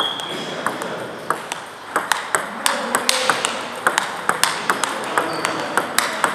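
Table tennis balls struck by paddles and bouncing on the tables, with several tables in play at once: a quick, irregular run of sharp clicks, echoing in a large gym hall.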